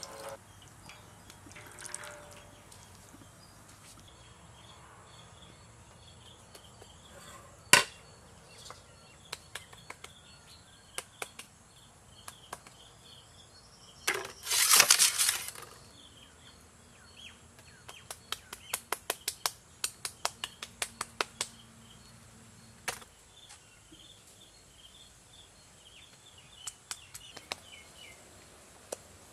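Birds chirping in the background, with scattered sharp clicks and knocks. About halfway through there is a brief loud hiss, followed by a run of quick taps, about three a second.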